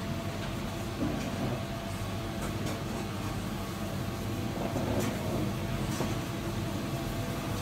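Steady low rumble of street traffic, with a few faint ticks over it.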